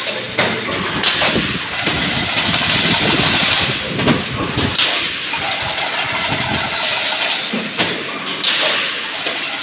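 Automatic chain link fence weaving machine running: a loud, steady mechanical clatter with irregular knocks as it weaves the wire mesh.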